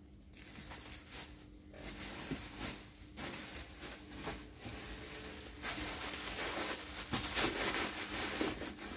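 Crinkly plastic wrapping rustling as it is handled and pushed into a handbag as stuffing. The rustling comes in uneven spells and is loudest in the second half, over a faint steady hum.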